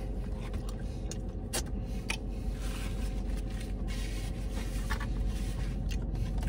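Steady low hum of a car interior, with a few small clicks and a brief paper rustle as a man chews a sandwich and wipes his mouth with a napkin.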